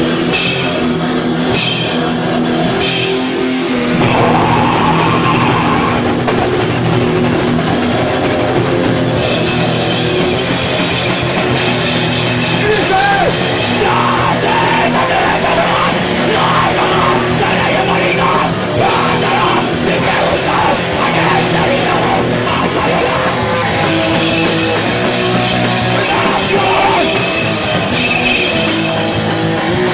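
Live heavy metal band playing loud, with electric guitar and a drum kit. A few separate hits open it, and the full band comes in about four seconds in.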